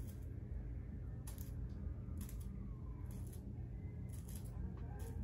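A comb raking through the hair of a curly water wave wig: a few short scratchy rustles about a second apart, over a low steady hum.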